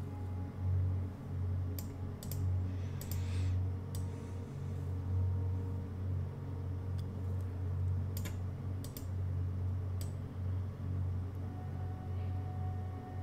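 Scattered clicks of a computer mouse and keyboard, about a dozen spread irregularly, over a steady low hum.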